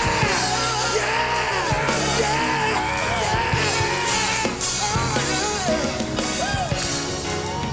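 Live gospel band playing: a drum kit with cymbal crashes over bass and keyboards, with singers shouting and ad-libbing over it.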